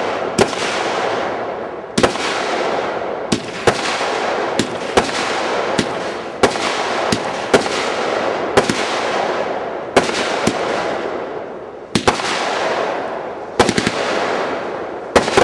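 Consumer multi-shot fireworks cake firing a volley of shots: sharp reports at uneven spacing, roughly one a second, with a quick rattle of several shots near the end and a steady rushing hiss of the comet effects between them.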